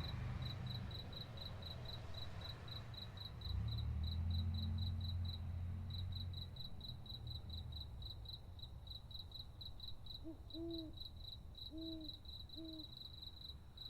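Night ambience: crickets chirping in steady rapid pulses, with a low rumble for a couple of seconds. Near the end an owl gives three short hoots.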